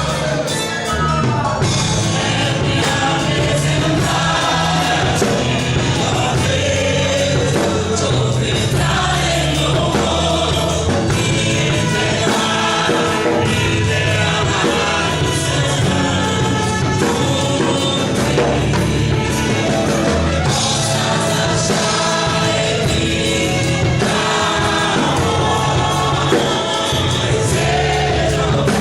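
Gospel worship music with a choir singing over a full band with a steady beat.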